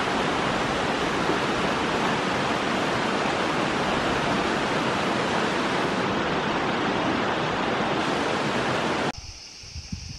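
Steady, loud rushing hiss that cuts off suddenly about nine seconds in. It gives way to a much quieter forest background: a faint, steady high buzz with a few soft rustles and knocks.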